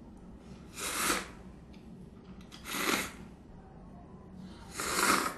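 Instant cup ramen noodles being slurped up off chopsticks, three slurps about two seconds apart.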